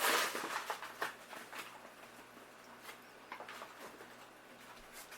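Measuring cup scooping flour from a paper bag: soft scratchy rustling and scraping in the first second or so, then only a few faint taps.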